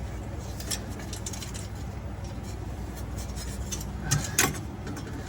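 Light clicks and taps of parts and tools being handled, with two louder sharp knocks about four seconds in, over a steady low hum.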